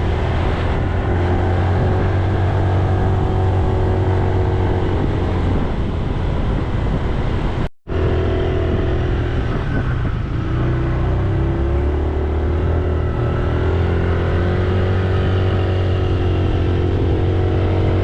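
Motorbike engine running while riding, its pitch rising and falling with speed, over a strong low rumble. There is a brief cut to silence about eight seconds in.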